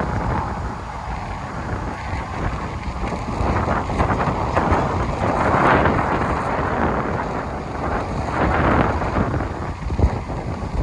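Storm wind buffeting the microphone, swelling in gusts around the middle and again later, with a short sharp thump near the end.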